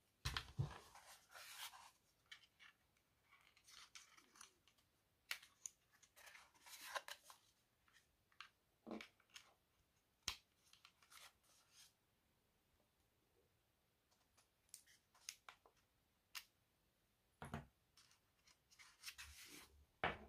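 Quiet handling noise from a portable electric air compressor and its USB-C charging cable: scattered sharp clicks and brief scraping rustles as hands turn the plastic unit over.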